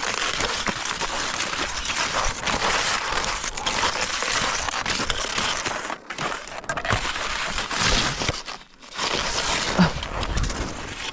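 Footsteps crunching through snow, steady walking with a couple of brief pauses.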